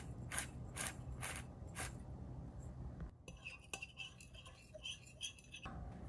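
Kitchen prep: a knife cutting on a cutting board, about five even strokes at roughly two a second. About halfway through, this gives way to lighter clicks and clinks of utensils.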